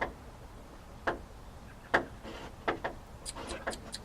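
A series of sharp clicks and knocks, spaced about a second apart at first, then a quick run of short high ticks near the end.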